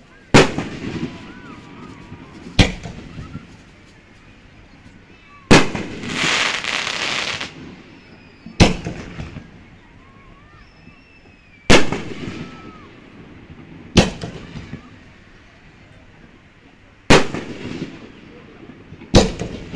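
Aerial firework shells bursting overhead: eight sharp booms two to three seconds apart, each dying away in an echoing tail. After the third boom, a loud hiss lasts about two seconds.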